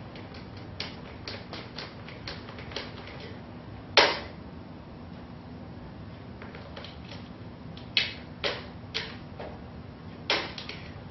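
Cat flap knocking against its frame as a cat pushes at it from the other side. A run of light clacks, one loud knock about four seconds in, and four more sharp knocks in the second half.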